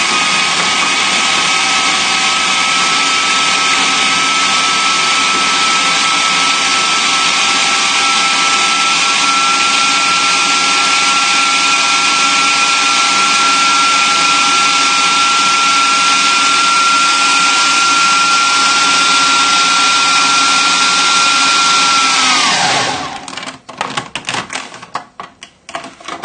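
Food processor motor running steadily with a high whine as it blitzes a dry filling of Manchego cheese and Serrano ham. About 22 seconds in it is switched off and the whine falls away, followed by a few clicks.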